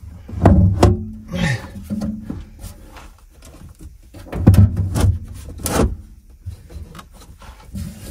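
Knocks, clunks and rubbing of a heavy Victron MultiPlus-II inverter's case being shifted and fitted by hand, with the sharpest knocks about half a second in and again around four and a half and nearly six seconds in.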